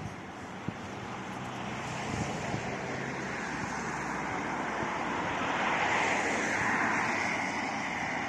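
Outdoor rushing noise that slowly swells, loudest about six seconds in, with a faint click or two near the start.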